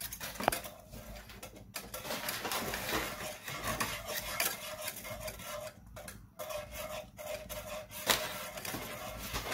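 Wire balloon whisk stirring flour into melted butter and milk in a metal saucepan for a white sauce. It makes a continuous rapid scraping, with the wires clinking and ringing against the pan.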